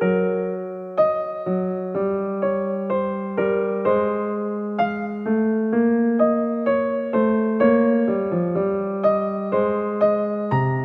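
Slow, gentle electric-piano music: single notes struck about two a second over held lower notes.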